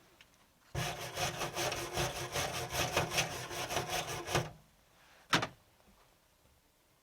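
MIG welder laying a run on thin car-body sheet steel: a dense crackle over a steady hum for about four seconds, then a short tack burst about a second later.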